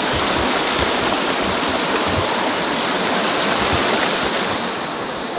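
A stream of water rushing steadily through a flooded yard.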